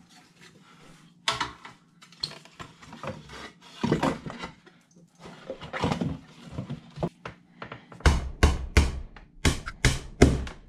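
Wooden wall panels being handled and fitted back into place, with scraping and knocks, then a quick run of about eight hammer blows on the wood panelling near the end.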